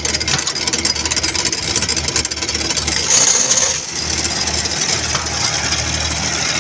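Brick-making machine running steadily under engine power, its engine knocking and its chain drive and conveyor rollers rattling. There is a brief louder, high-pitched rush about three seconds in.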